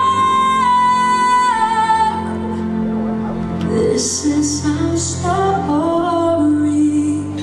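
Music: a slow song with a woman singing, opening on a long held note and then moving through shorter sung notes.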